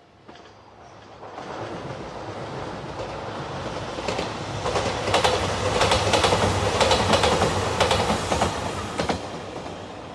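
Three-car diesel limited express train approaching and passing close by. Its wheels clatter over the rail joints in quick repeated clicks, loudest midway, and the noise fades as it goes away.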